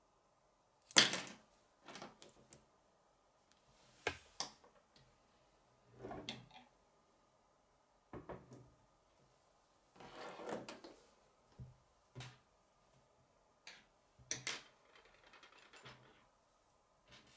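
K'nex plastic pieces clicking and knocking as they are handled and set down on a wooden tabletop: scattered sharp clicks with pauses between them, the loudest about a second in.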